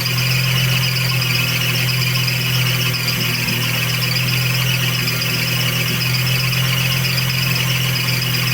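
1991 Kadett engine running with its accessory drive belt squealing, a steady high squeal over the engine's even hum.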